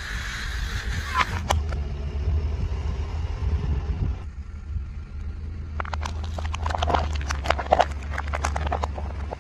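Car engine rumbling low and steady as its tyre rolls over objects: an aerosol deodorant can hisses briefly at the start with a couple of sharp clicks. In the second half, thin plastic bowls crack and crunch under the tyre in a quick run of snaps.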